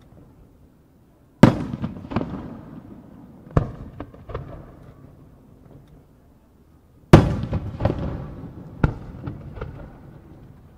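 Aerial firework shells bursting: a sharp boom about a second and a half in and a louder one about seven seconds in, each followed by fainter reports and a long, fading rolling echo.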